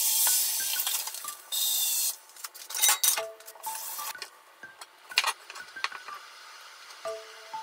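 Kitchen clatter: two short bursts of hiss in the first two seconds, then the knocks of a frying pan being set on a gas hob. After that, a kitchen knife taps lightly and unevenly through green beans on a mango-wood cutting board.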